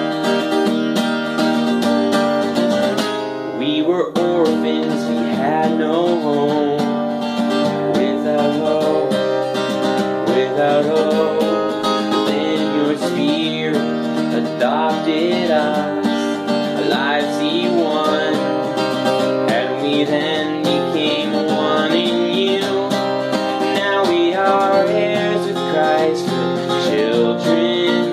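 Acoustic guitar strummed steadily in chords, with a voice singing a slow worship song over it. The playing dips briefly a few seconds in before the strumming and singing carry on.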